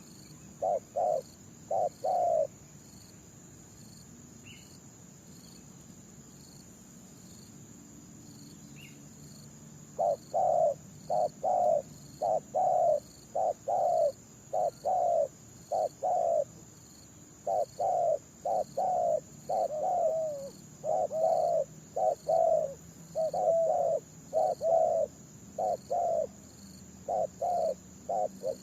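Spotted dove cooing: a short phrase of three coos about a second in, then, after a pause of about seven seconds, a long run of repeated coo phrases. A steady high insect drone runs underneath, and a few faint high bird chirps come in the first half.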